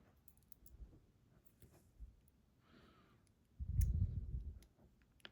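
Faint, scattered small clicks of tiny lock parts and tools being handled, with a soft breath out just before the middle and about a second of low, muffled handling bumps after it.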